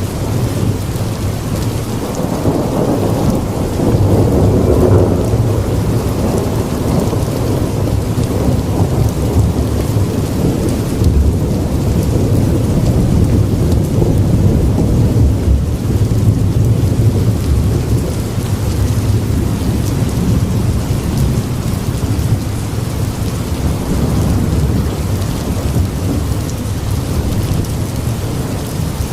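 Steady rain with rolling thunder. A deep rumble builds about two seconds in and keeps grumbling under the rain.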